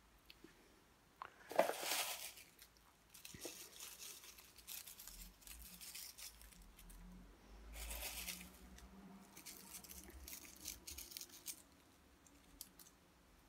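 Large tarot cards being handled and slid into place on a table: papery rustling and sliding in several bursts with soft taps, the loudest about two seconds in.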